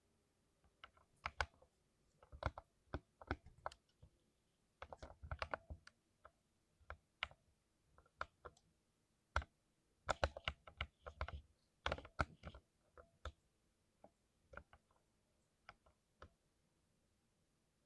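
Keystrokes on a 60% mechanical keyboard, typed in irregular bursts of clicks with short pauses between them, stopping a second or so before the end.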